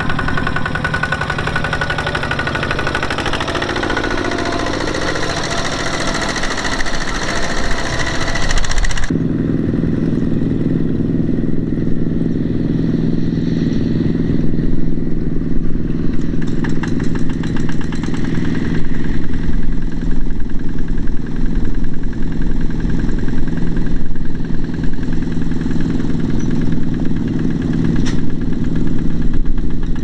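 Two-wheel walking tractor's diesel engine running under load as it pulls a loaded trailer through a muddy rice field. About nine seconds in, the sound changes abruptly to a steadier, lower engine note.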